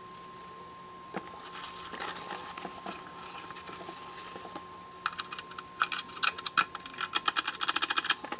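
Rapid clicking and rattling of a Technics SL-1301 turntable's tonearm-movement linkage, its small levers worked back and forth by hand, starting about five seconds in after softer handling and rustling. The parts move freely and loosely.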